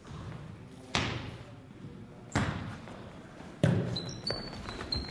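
A soccer ball being kicked three times, each kick a sharp thud about a second and a half apart, with an echo after it. Short high squeaks come in near the end.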